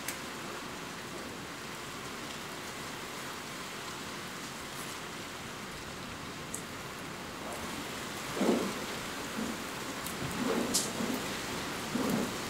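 Steady heavy rain, an even hiss, with a few short, louder low rumbles in the last few seconds.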